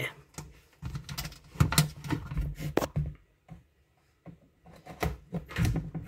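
Hands working the plastic spin basket and the cable ties fitted as its locks inside a portable washing machine's tub: a series of light plastic clicks and knocks, thickest in the first half, with a couple more near the end.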